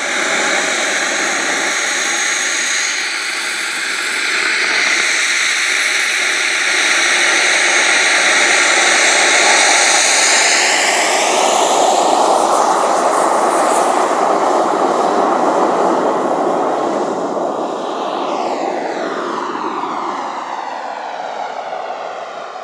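A radio-controlled model airplane's motor at high power during takeoff. The pitch rises as it speeds up, then drops in a falling sweep as the plane passes and climbs away, fading near the end.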